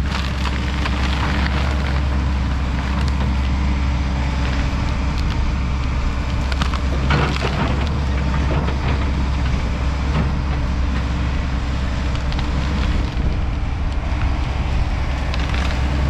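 Kobelco SK210 excavator's diesel engine running steadily under work, with scattered cracks and snaps of breaking brush and branches.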